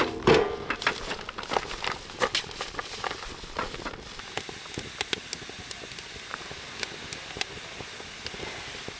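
Firewood and dried corn cobs burning in a camping fire pit, crackling with sharp, irregular pops that come thicker in the first few seconds and sparser later. One louder short sound stands out just after the start.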